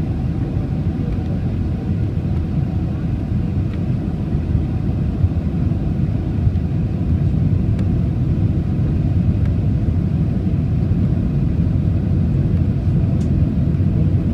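Steady low rumble inside an airliner cabin on its landing approach: engine and airflow noise heard from a window seat.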